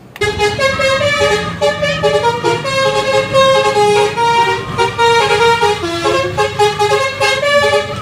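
Toy school bus's electronic sound unit playing a 'telolet' bus-horn tune: a quick string of stepping, horn-like notes that starts suddenly.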